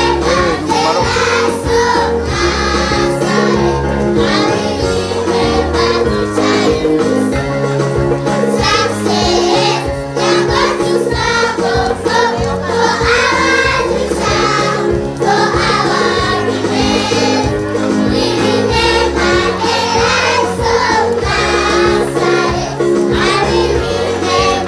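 A group of young children singing together into a microphone over instrumental backing with a steady beat.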